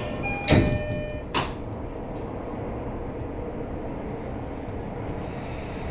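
Commuter train car's sliding doors closing, with a heavy thump about half a second in and a sharper knock about a second later, while a few steady chime-like tones fade out. After that comes the steady, even rumble of the car's interior.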